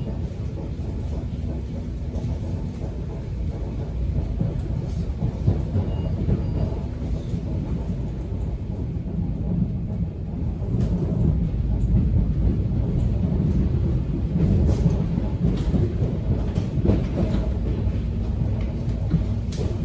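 Subway train in motion: a steady low rumble of the car, with scattered clicks and knocks from the wheels on the rails. It grows a little louder about four seconds in and again near the middle.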